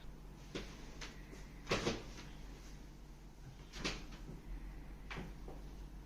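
Four short thumps and knocks from a patient being handled and repositioned on a chiropractic treatment table. The loudest is a double knock about two seconds in.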